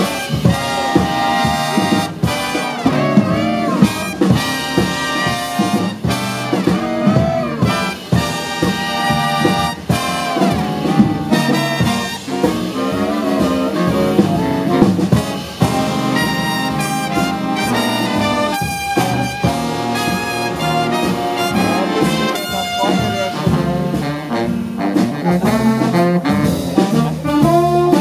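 Jazz big band playing live, the trumpet, trombone and saxophone sections together over upright bass.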